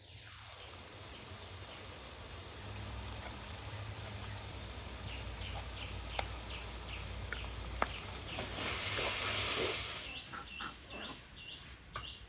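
Minced meat and onions frying in a wide metal pan and stirred with a wooden spoon, with a couple of sharp knocks, and a louder hiss for about a second and a half two-thirds of the way in. Small birds chirp repeatedly.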